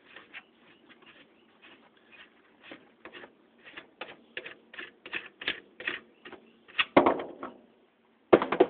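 Irregular light metallic clicks and rattles of ceiling fan motor parts being unscrewed and handled, getting busier as it goes, with a heavier clunk about seven seconds in.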